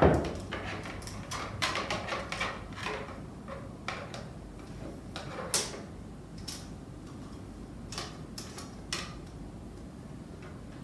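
Clicks and light knocks from handling a folding ruler and a power cable while measuring the cable, with a thump at the start. The clicks come thick and fast for about three seconds, then only now and then, the sharpest a little over five seconds in.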